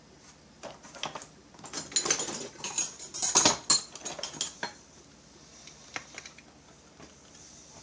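Small metal tools and chainsaw parts clinking and clattering as they are handled, in a quick run of clicks and rattles from about half a second in until nearly five seconds, then a few scattered ticks.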